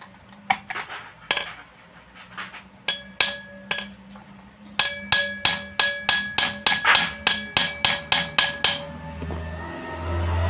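A steel wrench tapping on a motorcycle engine's bolt or nut to shock the stuck fastener loose. Each strike rings like metal: a few spaced taps at first, then a quick run of about three taps a second. Near the end the taps stop and a low steady hum swells up.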